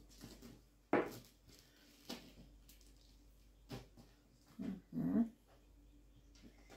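Sharp plastic clicks and taps as a syringe and medicine vial are handled and set down on a table, the sharpest about a second in. About four and a half seconds in, two short low squeaking cries from a cat in labour.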